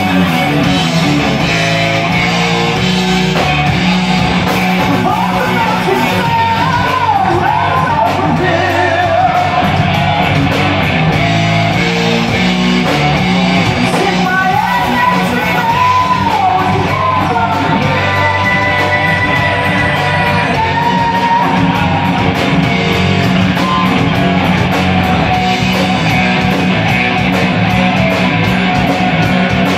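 Live heavy metal band playing loud: distorted electric guitars, bass and drums in a large room. A lead line bends and wavers in pitch twice, about six seconds in and again around the middle.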